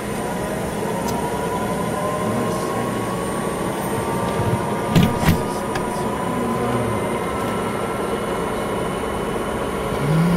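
Antonov An-24B's Ivchenko AI-24 turboprop engine and propeller running steadily on the ground, heard from inside the aircraft, with a faint whine that rises slowly in pitch. Two short knocks come about five seconds in.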